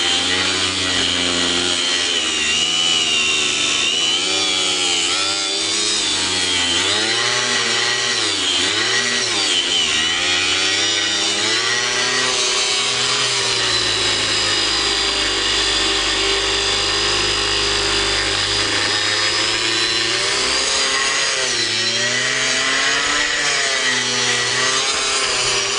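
Hitachi 125 mm angle grinder cutting through a rusty metal bar with a cut-off disc: a steady motor whine and grinding hiss whose pitch dips and recovers several times as the motor slows under load and picks up again.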